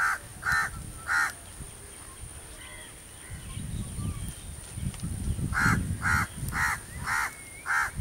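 A crow cawing: three harsh caws about half a second apart, then, after a pause of a few seconds, five more at the same pace. A low rumble runs under the later caws.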